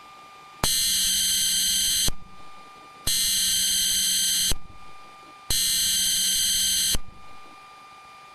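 Emergency Alert System SAME header: three identical bursts of buzzing digital data tones, each about a second and a half long, with about a second of quiet between them. They open an EAS alert, here a test, and carry its coded originator, event and area data.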